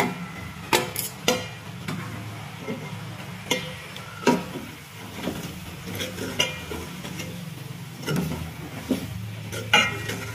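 A metal spoon stirring thick keema curry in a metal pot, with irregular clinks and scrapes against the pot; the loudest clink comes near the end. A steady low hum runs underneath.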